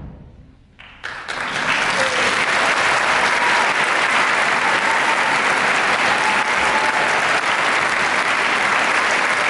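The choir's last note dies away, and after a brief hush an audience breaks into steady applause about a second in.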